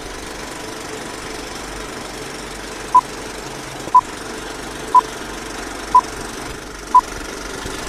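Film-leader countdown sound effect: the steady rattle of a running film projector, with a short high beep once a second from about three seconds in, five beeps in all, one for each number of the countdown.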